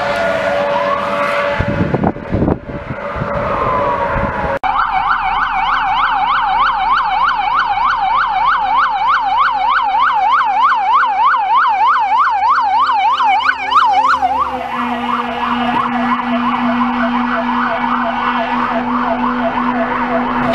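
Fire engine sirens. A siren falls in pitch as one truck passes and moves away. After a cut, a fast yelp siren sweeps up and down about four times a second as another truck comes on. About two-thirds of the way in it changes to a steadier siren with a low steady tone beneath.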